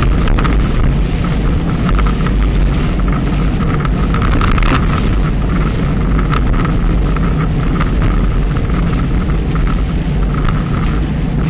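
Wind buffeting an action camera's microphone on a bicycle moving at speed: a steady, loud rumble with scattered light clicks and rattles.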